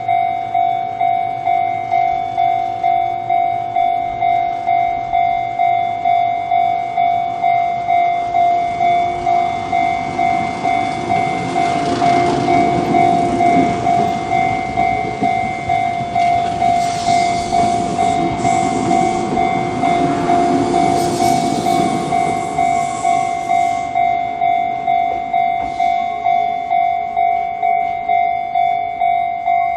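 Railway level-crossing alarm ringing steadily in its electronic 'Chichibu'-type bell tone, about two strikes a second. A Fujikyu Railway train passes over the crossing in the middle, its running noise and wheel clacks rising and fading away before the end.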